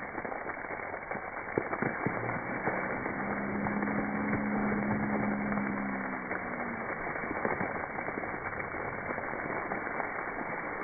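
Water from a splash pad's tipping bucket pouring and splashing onto a person below, a steady muffled crackling hiss, with a low drawn-out tone in the middle.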